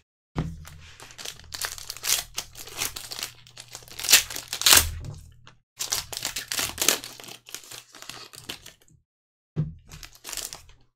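Foil trading-card pack wrapper crinkling and tearing as gloved hands rip it open, with two loudest rips about four and five seconds in. The crinkling stops briefly near nine seconds, then comes back in a short burst near the end.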